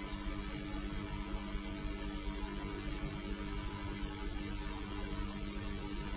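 Steady electrical hum, several low tones held without change over a faint hiss.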